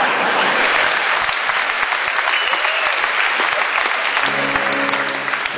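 A concert audience applauding, a dense clapping. About four seconds in, an acoustic guitar begins playing chords as the applause thins.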